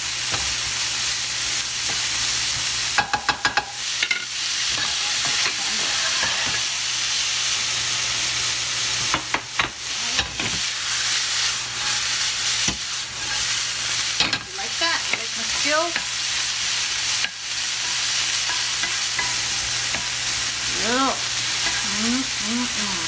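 Diced Canadian bacon sizzling in olive oil in a nonstick frying pan, with a steady frying hiss. A wooden spoon stirs and scrapes the pieces and taps against the pan, in a quick run of taps about three seconds in and a few single knocks later.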